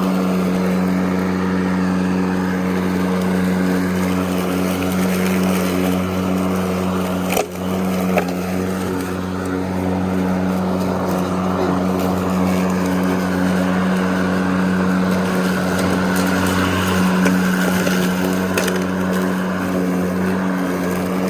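Ryobi 40V HP brushless 20-inch cordless push mower running at steady speed with a steady hum, its electric motor and blade cutting grass. A sharp knock about seven seconds in, with a brief dip in the hum.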